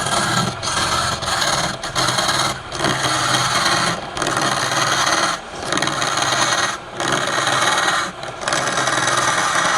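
Wood lathe turning palm wood with a cutting tool scraping against the spinning piece: a loud, steady scraping hiss over the lathe's motor hum, broken by brief gaps every second or so as the tool lifts off the wood.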